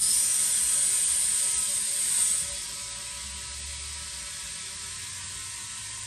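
Compressed air hissing from an inflator into an open valve stem, filling a UTV tire to seat its bead. The hiss is loud for about the first two seconds, then drops to a quieter, steady flow.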